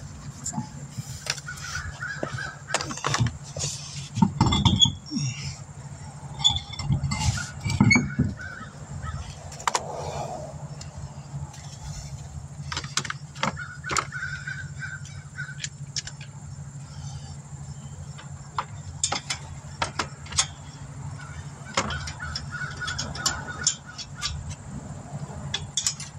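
Clinks and knocks of a car's rear road wheel being refitted by hand, with the heaviest thumps about four and eight seconds in, over a steady low hum. Short honk-like calls sound several times in the background.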